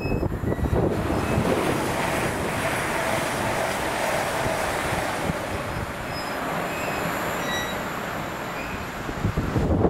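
A non-stopping train passing through the station at speed: a steady rush of wheel and rail noise and air.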